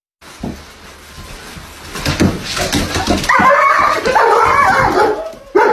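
A German shepherd-type dog whining and yelping in a high, wavering pitch from about three seconds in, after a few seconds of knocks and shuffling.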